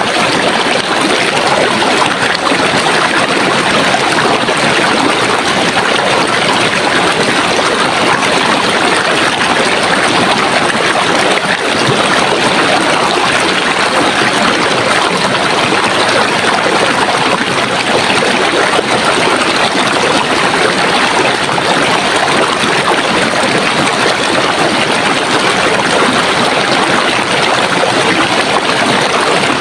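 Running water, a stream flowing and splashing in a steady, dense rush.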